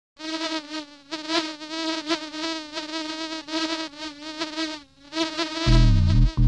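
A bee's buzzing, held at one pitch and swelling and fading with brief dips, over the title music. Deep, heavy bass notes come in near the end.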